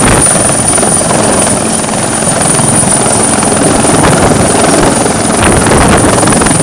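Bell 412 twin-turbine helicopter hovering just above a helideck and settling onto its skids. Loud, steady rotor chop, with a high steady turbine whine over it.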